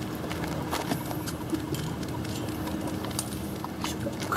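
Footsteps on a concrete pier: a few scattered light taps over a steady outdoor background with a faint low hum.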